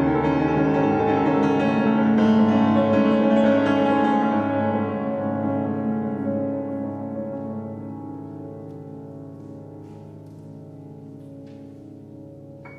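Steinway grand piano playing dense, sustained chords that ring together, loudest in the first few seconds and then slowly dying away over the second half.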